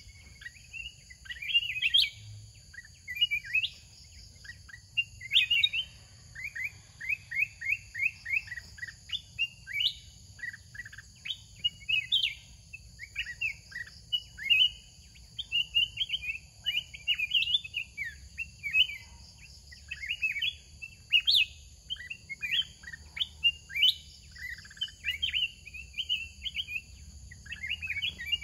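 Sooty-headed bulbuls singing: a fast run of short, clear chirping notes repeated in quick phrases, from a caged decoy bird and a wild bulbul answering it.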